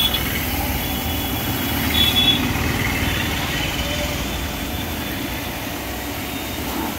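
Btali BT 1800 HPW 3 HP pressure washer pump running steadily at full pressure while its jet sprays water onto a scooter's plastic body, rinsing off foam.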